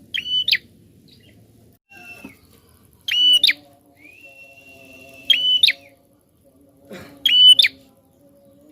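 Prinia (prenjak) calling: four loud, short chirps about two seconds apart, with a long level whistle between the second and third. A faint steady low hum runs underneath.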